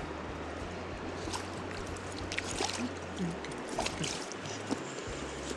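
Steady rush of flowing river water, with a low steady hum underneath that stops about two-thirds of the way through and a few short sharp sounds in the middle.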